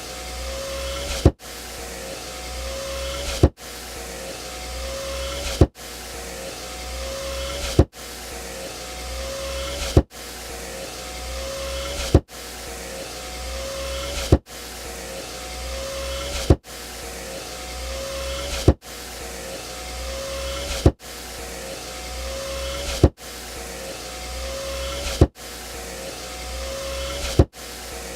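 Car power window motor running in runs of about two seconds, each with a steady whine that rises slightly and ends in a sharp thunk. The runs repeat over and over at even spacing.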